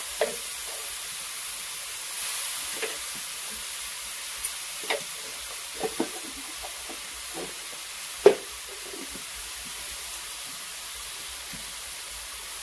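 Masala sizzling in hot oil in a kadhai over a wood fire, a steady hiss. Scattered short knocks sound through it, the loudest about eight seconds in.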